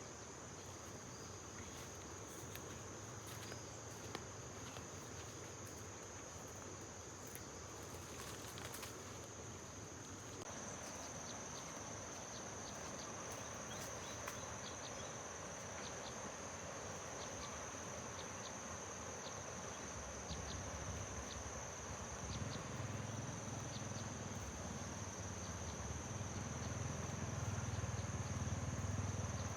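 Insects trilling steadily in one constant high-pitched note, with a low rumble building up in the last third.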